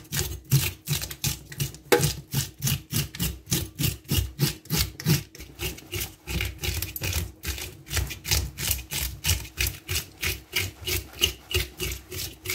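Fish-scaling knife scraping the scales off a whole carp in rapid repeated strokes, about four a second.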